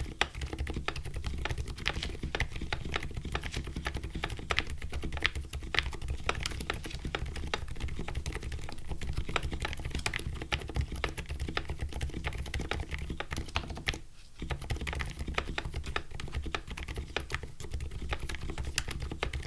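Typing on a custom mechanical keyboard with lubed Silent Alpaca linear switches, a polycarbonate plate and PBT keycaps. A steady, fast run of muted keystrokes, with a brief pause about two-thirds of the way through.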